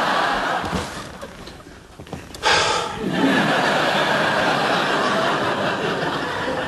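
Studio audience laughing: one laugh dying away over the first two seconds, then a fresh burst breaks out suddenly about two and a half seconds in and carries on.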